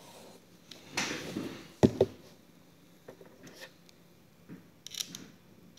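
Handling of an opened MacBook Pro's aluminium chassis: a brief rustle, then two sharp knocks in quick succession, followed by a few faint clicks.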